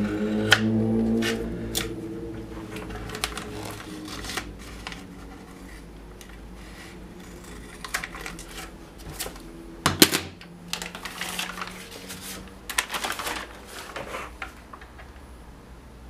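Scissors snipping through a ski climbing skin and its backing sheet: a scattered series of short, crisp cuts, with one louder knock about ten seconds in. A low pitched hum sounds during the first two seconds.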